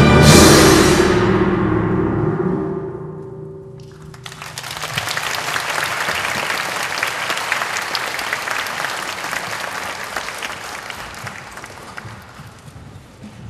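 Orchestra and chorus cut off their final chord just after the start, and it rings away in the concert hall for a few seconds. About four seconds in, the audience breaks into applause, which slowly fades.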